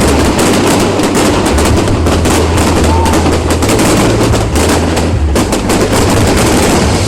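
Fireworks going off in a rapid, continuous barrage of sharp bangs and crackles, too close together to count, over a steady low hum.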